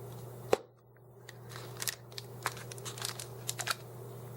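A plastic surprise egg pops open with one sharp click, followed by a run of small crinkles and clicks as plastic packaging inside is handled.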